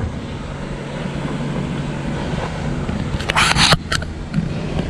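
Steady low hum of a boat motor running, with a brief rustle a little over three seconds in.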